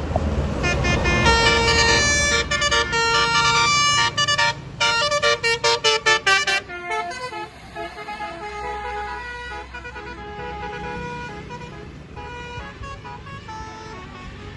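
Tour bus's basuri 'telolet' musical air horn playing a multi-note tune: held notes, then a fast run of short toots. It continues more faintly through the second half over the rumble of the bus engine.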